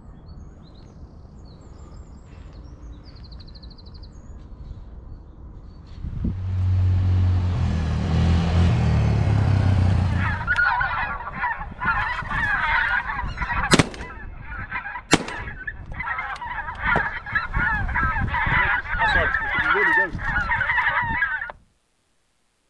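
A flock of geese honking in a dense chorus, broken by two shotgun shots about a second and a half apart, which are the loudest sounds; the honking cuts off suddenly near the end. Before it, a low rumble swells and fades.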